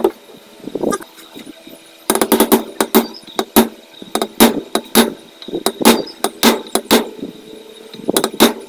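Rubber mallet striking a metal drift to tap an oil seal into a Yamaha 125ZR aluminium crankcase: repeated sharp knocks. After a lull of about two seconds, a quick run of about three blows a second comes, then blows about every half second, quickening again near the end.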